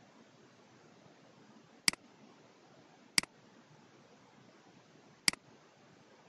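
Three computer mouse clicks, each a quick press and release: two about a second apart, then a third two seconds later. A faint steady hiss runs underneath.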